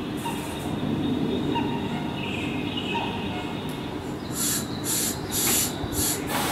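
Standing Keihan 9000 series electric train humming at the platform; from about four seconds in, a quick run of short air hisses, about two a second.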